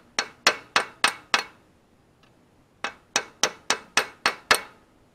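Hammer blows on a 22 mm socket used as a driver, tapping a pilot bearing into its bore at the centre of the flywheel. There are sharp metal-on-metal strikes in two runs, five and then seven, at about three a second, with a pause of over a second between them.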